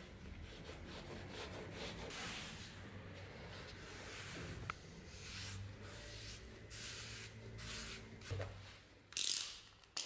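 Hands rubbing and pressing tape flat along a wrapped blade, giving a soft, uneven rustling. Near the end comes a short, louder scrape as a utility knife goes to work on the tape.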